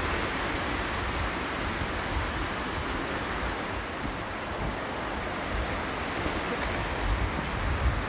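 Steady wash of small waves breaking on a sand-and-pebble shore, mixed with low wind rumble on the microphone.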